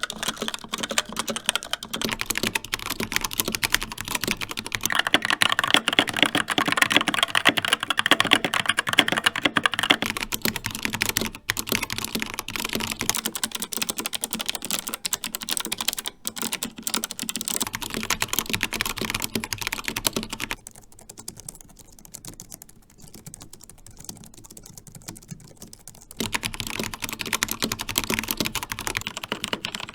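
Typing on a run of mechanical keyboards in turn, the key sound changing every several seconds: a Razer Pro Type with Razer Orange switches, then a Skyloong GK61 with Gateron Optical Brown switches, an MSI Vigor GK50 TKL with Kailh White switches, and a Logitech MX Keys with scissor switches, noticeably quieter, before a Keychron K4 with Gateron Brown switches near the end.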